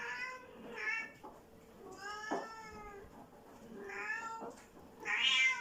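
Bengal kitten meowing repeatedly, about five meows in a row, one drawn out in the middle and the loudest near the end.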